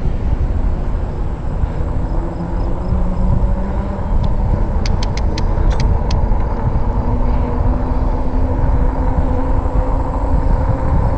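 Fat-tire e-bike riding on pavement: steady low wind rumble on the camera's microphone and tyre noise, with a faint hum under it. A quick run of clicks comes about five seconds in.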